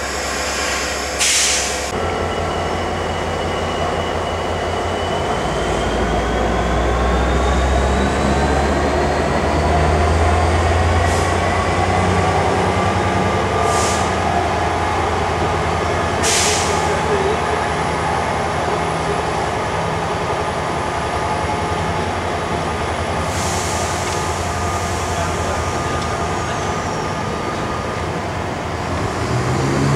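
A steam-hauled train of coaches rolling slowly, with a steady low rumble and long, squealing tones from the wheels that slowly shift in pitch. Short hisses come now and then, the longest about three-quarters of the way through.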